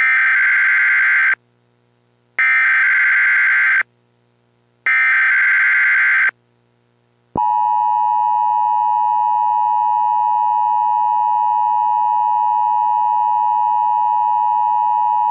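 Emergency Alert System alert tones: three identical bursts of SAME digital header data, each about a second and a half long with a short gap between, then the steady two-tone EAS attention signal, which starts about seven seconds in and holds for about eight seconds. Together they mark the start of an EAS alert, here a National Weather Service dust storm warning.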